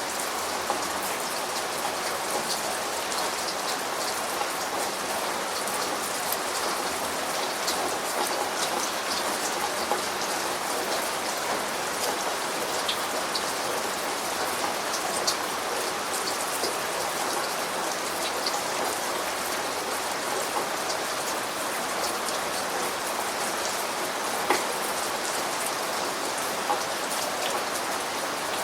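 Steady rain falling, a constant hiss with the sharp ticks of individual drops striking a surface close by.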